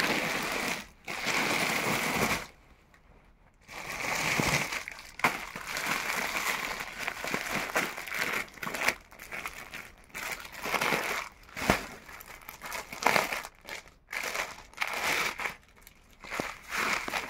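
Clear plastic packaging bag crinkling and rustling in stop-start bursts as a folded garment is handled and pulled out of it, with a short pause about two and a half seconds in.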